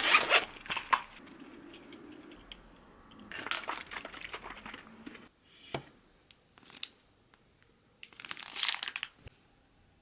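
Packaging crinkling and rustling as it is handled and opened, in three spells with a few sharp clicks between them.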